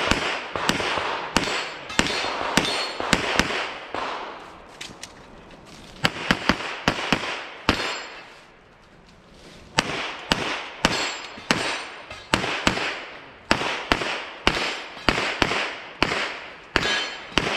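Rapid pistol gunfire during a USPSA stage run: sharp echoing shots, often in quick pairs, with a pause of about two seconds just past the middle before the shooting picks up again.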